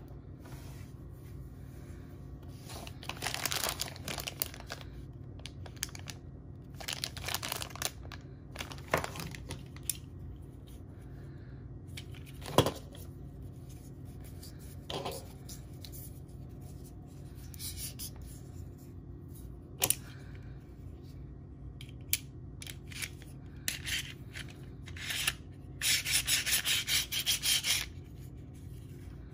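Plastic toy parts and cardboard packaging being handled and unpacked by hand: scattered rustling and rubbing with a few sharp clicks, and a few seconds of fast, busy rustling near the end.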